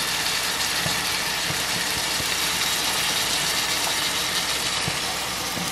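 Pork chop frying in oil in a stainless steel pan: a steady sizzle with a few faint pops.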